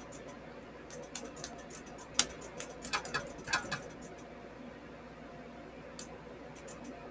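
Sparks crackling and snapping as the solder-tipped positive lead of a homemade 30-volt power-supply welder is touched against grounded sheet metal. A quick run of sharp clicks comes about a second in and lasts a few seconds, with a few more snaps near the end.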